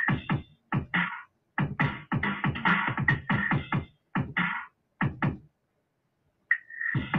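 Choppy synthesized electronic sounds: short bursts of pitched tones broken by brief dead silences, with a gap of about a second near the end.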